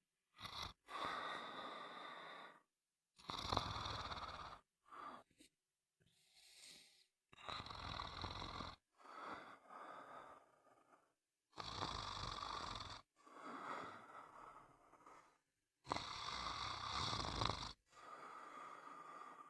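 Snoring, about ten snores one after another, each lasting one to two seconds, with dead silence between them.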